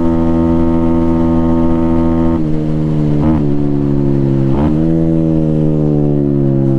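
Venom Thunder 125cc dirt bike's air-cooled single-cylinder engine running flat out at top speed, a steady high note. About two and a half seconds in the note changes, dips briefly twice about a second apart, then the revs sag gradually as the bike eases off.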